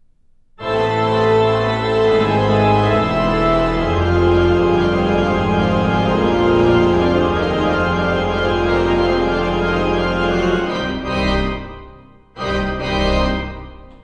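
Loud score music of sustained chords with shifting bass notes, starting abruptly about half a second in and fading out near the end. A shorter burst of the same music follows just before the end.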